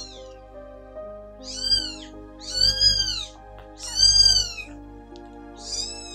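A three-week-old kitten meowing four times, each a high, thin cry that rises and falls, over soft background music.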